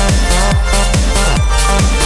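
Electronic dance music with a steady beat and deep bass.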